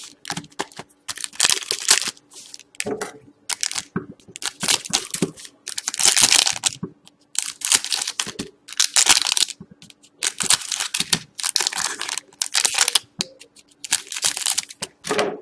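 Hockey trading card pack wrapper being torn open and crinkled by hand: a quick run of short crinkling, rustling bursts.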